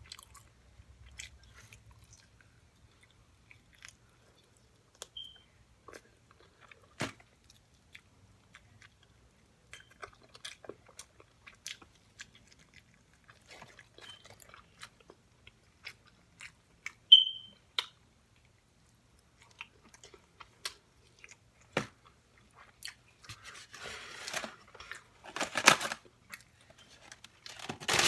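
Close-up eating sounds: chewing and biting into food, with many small wet mouth clicks. A brief high squeak a little over halfway through is the loudest sound, and a denser rustling, crunching stretch comes near the end.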